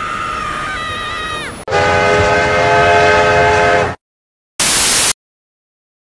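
A train horn blowing a chord whose pitch sags as it cuts off about one and a half seconds in. A second, lower horn chord of several notes then sounds steadily for about two seconds and stops abruptly. A brief burst of hiss comes near the end.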